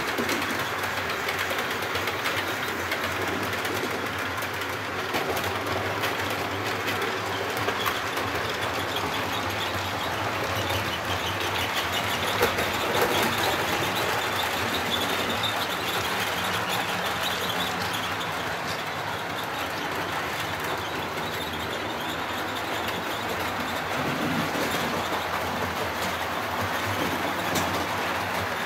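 Model trains running on the layout's track: a steady rolling rumble and clatter that swells a little about halfway through.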